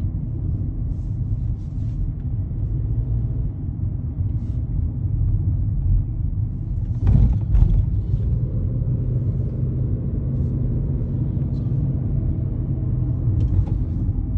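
Low, steady road and engine rumble heard from inside the cabin of a moving Volkswagen Jetta, with a brief louder thump about seven seconds in.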